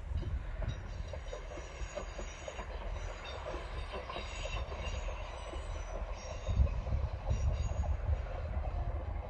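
A distant GWR diesel multiple-unit train running past, a steady low rumble with thin high-pitched squeals from its wheels coming and going. The rumble swells about two thirds of the way through.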